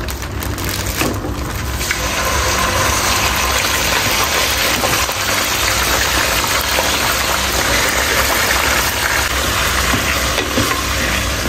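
Minced mutton sizzling in hot oil in a pot, starting about two seconds in when the mince goes into the oil and running steadily as it begins to fry. A steady low hum sits underneath.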